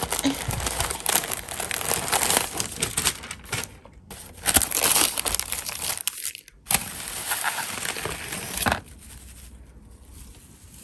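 Tissue paper and shredded kraft-paper box filler crinkling and rustling as hands dig through them, in three spells with short breaks. It goes much quieter about nine seconds in.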